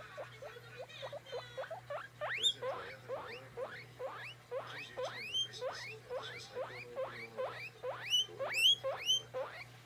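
Guinea pig wheeking over and over, short squeaks that each rise in pitch, about two or three a second, with a few louder calls that sweep much higher about two seconds in and again near the end. It is calling to be petted.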